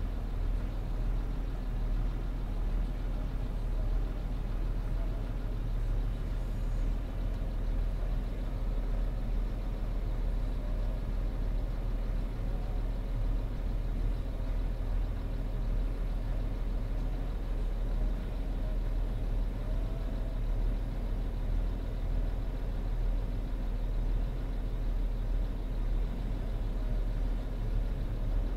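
Land Rover Discovery 3's engine idling, a steady low rumble heard from inside the cabin.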